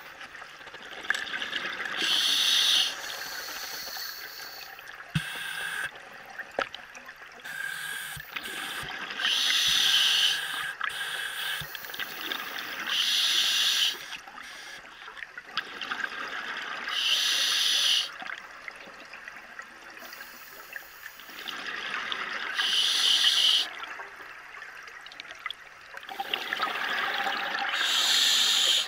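A scuba diver breathing underwater through a regulator: a hissing breath, then a loud rush of exhaled bubbles, repeating about every four seconds. A faint steady low hum and a few small clicks run underneath.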